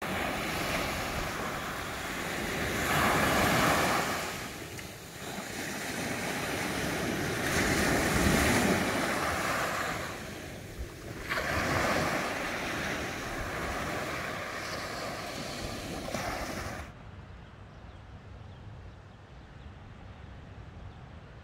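Sea surf washing onto a beach, with wind on the microphone: the rush of the waves swells and falls back three times. About three-quarters of the way through it drops abruptly to a quieter, duller, steady rush.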